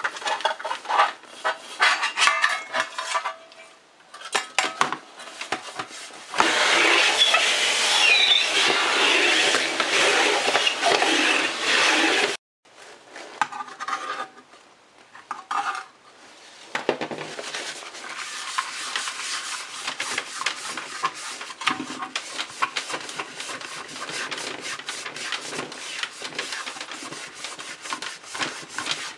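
A cloth rubbing over the sheet-metal shell and pan of an antique sandwich toaster, with small knocks as the metal parts shift. In the middle there is a louder steady noise for about six seconds that cuts off abruptly. After that comes steady rubbing with fine clicks as a rag works metal polish cream into the inside of the pan.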